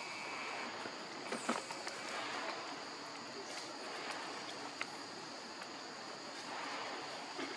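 Outdoor ambience of insects droning steadily at a high pitch, with a few faint clicks and a brief falling chirp; the sharpest click comes about a second and a half in.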